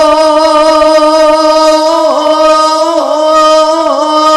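A man singing a naat, drawing out one long held note with small ornamental turns and brief dips in pitch in its second half.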